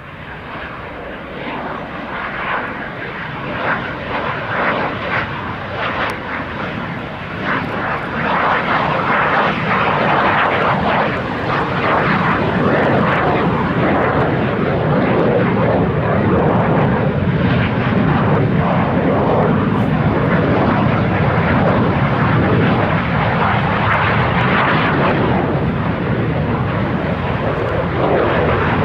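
Alpha Jet trainers taking off one after another: their twin-turbofan jet noise builds over the first eight seconds or so, then holds steady and loud.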